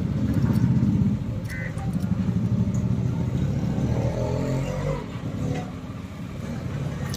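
A small engine running steadily nearby, with fine, even firing pulses. It drops in level about a second in and again about five seconds in.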